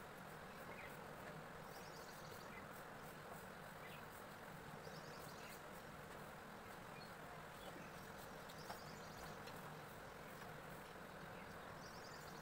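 Near silence: faint room hiss with a short, high trill recurring about every four seconds and a couple of soft clicks.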